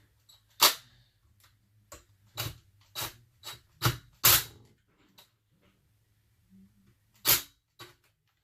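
Tools and chainsaw parts being handled on a workbench: about ten sharp clicks and knocks at uneven intervals, the loudest just under a second in, about four seconds in and about seven seconds in.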